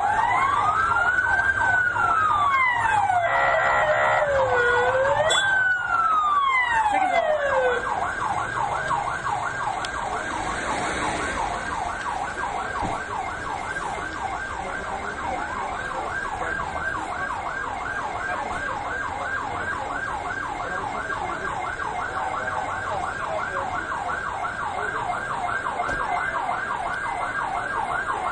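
Ambulance sirens: a slow wail rising and falling about every four seconds, with a second siren overlapping it. About eight seconds in it switches to a fast yelp of about four cycles a second.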